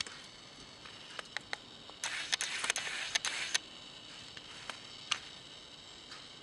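Monkey tearing the fibrous husk off a coconut: scattered sharp clicks, then a dense stretch of ripping and crackling about two seconds in, lasting a second and a half.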